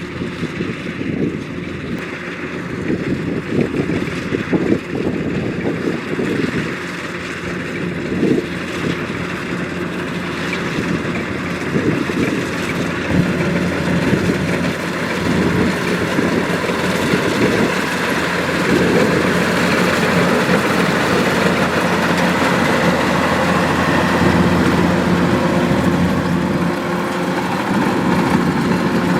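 Kubota DC-105X combine harvester running, a steady, loud machine noise that grows louder from about halfway through.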